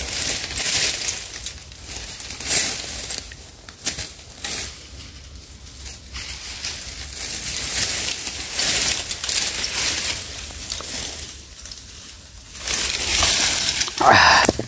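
Sipping and slurping water as it drips from a freshly cut huỳnh kỳ vine held over the mouth, in short intermittent noisy sucks with quieter gaps between. A louder burst of sound comes near the end.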